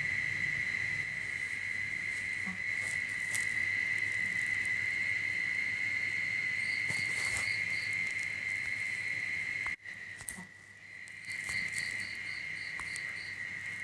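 Insects trilling: a steady high-pitched drone, with two runs of short chirps repeating about five times a second. The sound drops out briefly just before ten seconds in.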